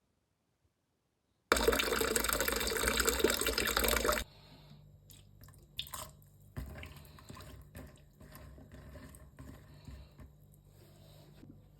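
Water running from a kitchen tap for about three seconds, starting suddenly and cutting off, followed by faint scattered clicks and knocks of kitchen handling.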